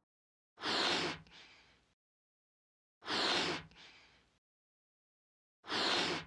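Three puffs of air, each about half a second long with a fainter short hiss trailing after, spaced roughly two and a half seconds apart: a balloon being blown up in stages.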